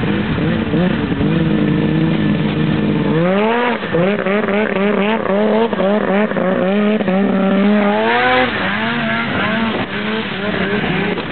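Snowmobile engine running hard as the sled skims across open water. Its pitch holds steady at first, then rises and falls again and again from about three seconds in, with a hiss of spray around eight seconds in.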